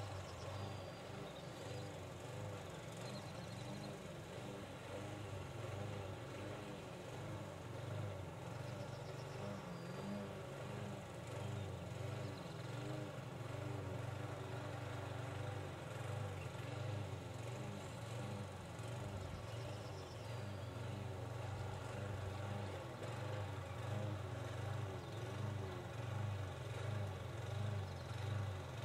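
A steady low engine hum with a few faint, short, high chirps over it.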